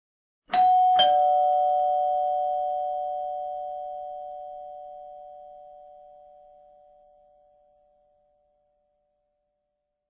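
Two-tone ding-dong doorbell chime: a higher note then a lower one about half a second later, both ringing on and slowly fading away.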